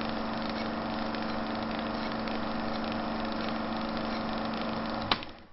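A steady mechanical drone with a fixed low hum and even low pulsing, broken by one sharp hit about five seconds in, then fading out.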